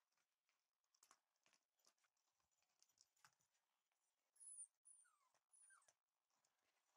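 Faint, soft patter of a Shiba Inu puppy's paws on the floor. About two-thirds of the way in come a few short, high, falling whimpers.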